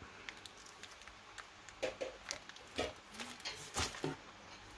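Clear plastic parts bags crinkling and rustling as model-kit parts are handled and sorted in the box, a series of short irregular crackles and light clicks, several louder ones in the second half.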